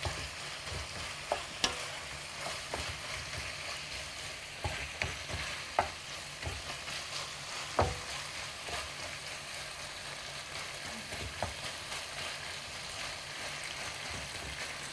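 Pieces of hare liver and heart sizzling in oil in a frying pan while a wooden spatula stirs them. The spatula knocks and scrapes against the pan now and then, the loudest knock about halfway through.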